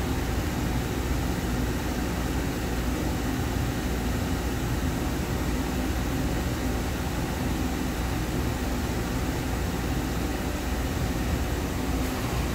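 A steady machinery drone with an even hiss and a low hum, unchanging throughout, with no distinct knocks or clicks.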